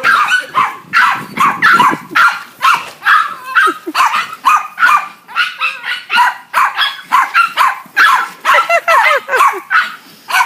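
Dog barking over and over, about two to three barks a second, with no break.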